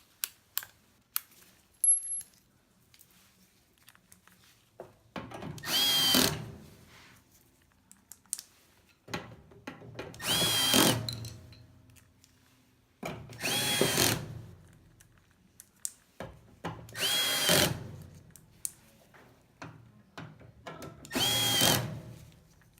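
Power drill/driver run in five short bursts of about a second each, a few seconds apart, each with a whine that rises as the motor spins up: screws being worked on a dryer's cabinet. Light clicks and clatter fall between the bursts.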